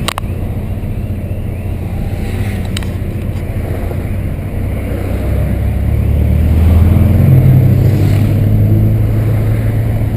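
Volkswagen Santana's 2.0-litre AP four-cylinder engine running under way, heard from inside the car as a low rumble with road noise. The drone swells louder about halfway through, then eases a little, and there are two short clicks, one right at the start and one about three seconds in.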